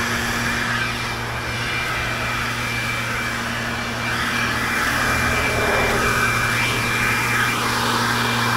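Leaf blower running steadily, blowing leaves, and getting louder about halfway through.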